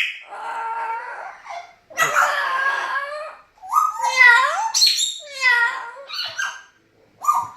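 A dog making a string of about seven drawn-out whining, yowling calls that bend up and down in pitch, some long and some short, with short gaps between them. These are the eerie sounds the owner finds scary.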